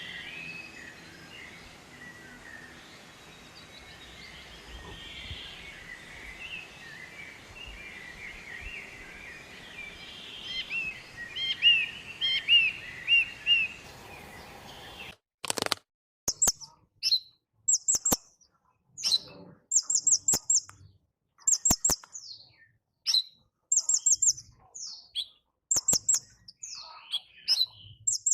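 Kincrong birds chirping. First comes a busy chorus of overlapping calls over a noisy background, with a loud run of chirps near the middle. After an abrupt cut, a clean recording follows of short, rapid high-pitched trills repeated about every two seconds, with falling notes and sharp clicks between them.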